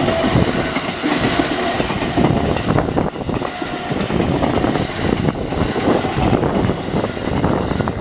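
Train running past close by, its wheels clattering over the rail joints in a dense, steady run of clicks.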